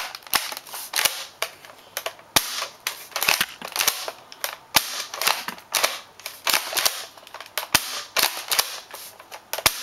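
Double Eagle M56C spring airsoft shotgun being pumped and fired over and over, a quick run of sharp plastic-and-spring clacks about two a second; very loud.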